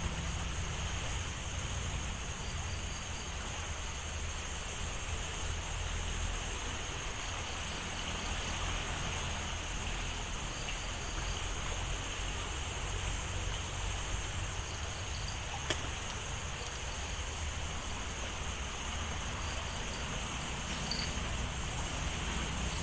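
Steady rush of flowing river water under a low rumble, with a steady high-pitched buzz of insects over it. A single sharp click about sixteen seconds in.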